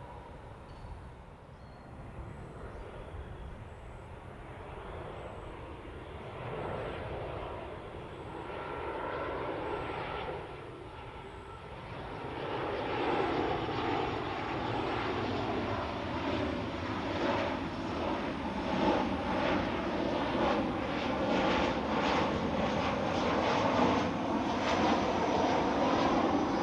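Airliner engines growing steadily louder as the aircraft draws near, a rumbling noise with tones sliding down in pitch in the second half.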